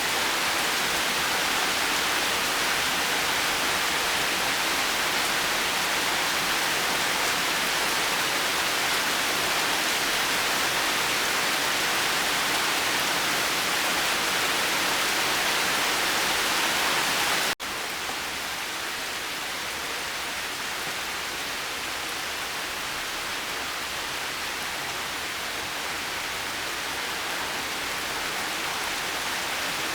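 Steady heavy rain, an even dense hiss. About two-thirds of the way through it cuts out for an instant and resumes slightly quieter, the mark of a splice between recordings.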